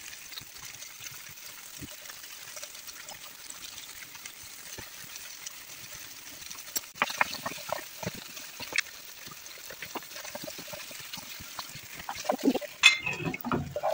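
Starch-coated chicken pieces sizzling steadily in hot oil in a nonstick frying pan. A fork and a wooden spoon click and scrape against the pan a few times as the pieces are turned, with louder stirring near the end.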